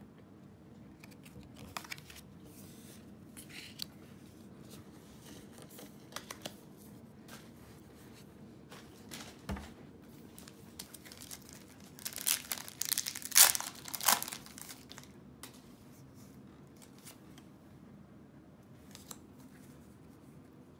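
Light rustles and clicks of trading cards being handled, then a little past the middle a Pokémon booster pack's foil wrapper crinkling and tearing open, the loudest part.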